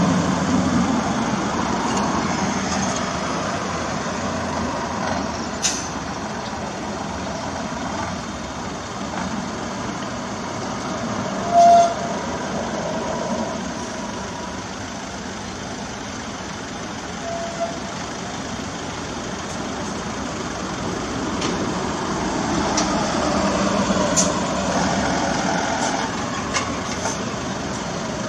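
A convoy of garbage trucks drives past one after another, their engines and tyres making a steady noise that swells as each truck comes closest. About twelve seconds in there is a short, high-pitched squeak.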